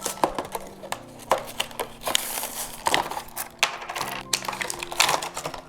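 Hatchimals CollEGGtibles plastic toy packaging being handled and opened: crinkling plastic with a string of sharp clicks and taps.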